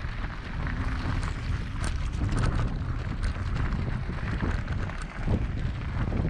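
Wind buffeting the microphone of a camera riding on a moving bicycle, a constant low rumble with scattered light clicks and rattles.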